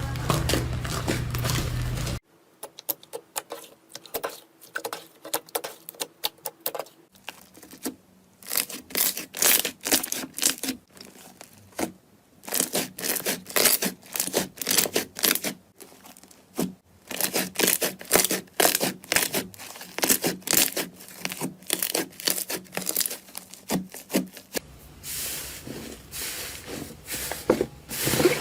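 Slime squeezed, stretched and pressed by hand, giving dense runs of sharp crackles, clicks and sticky tearing pops with short pauses between handfuls. A steady low hum plays briefly at the start.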